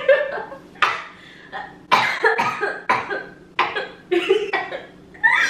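A young woman laughing hard in short, breathy, cough-like bursts, about two a second.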